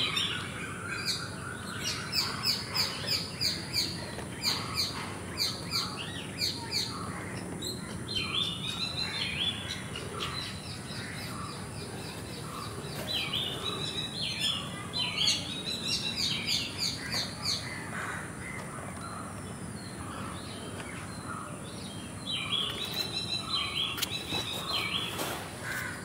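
Birds singing: a run of quick repeated high chirps, then several short warbling phrases, over a steady faint background hiss.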